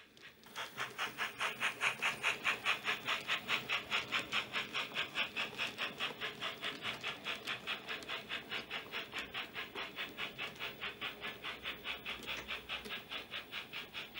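Steam-locomotive chuffing from a model Bavarian B VI steam locomotive, an even rhythm of about five beats a second. It starts about half a second in and grows a little weaker toward the end.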